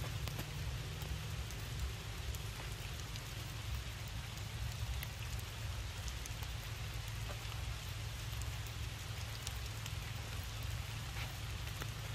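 Steady rain falling on puddled ground and a sheet of standing water, an even hiss with faint scattered drop ticks. A steady low rumble runs underneath.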